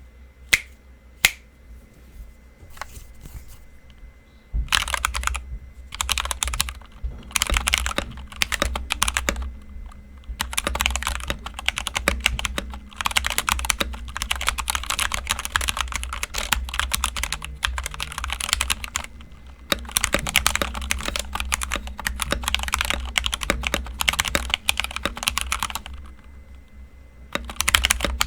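Typing on a KEMOVE Snowfox DK61 mechanical keyboard fitted with Gateron Speed Silver linear switches. A few single keystrokes come first, then fast, continuous runs of key clicks with short pauses between them.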